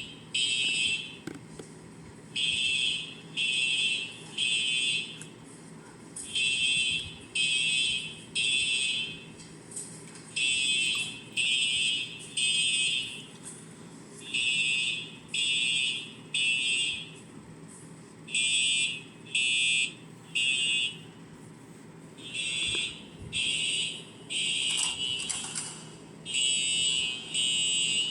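Fire alarm horns sounding during an alarm test, in the temporal-three evacuation pattern: three short high-pitched blasts, a pause, then three again, repeating about every four seconds.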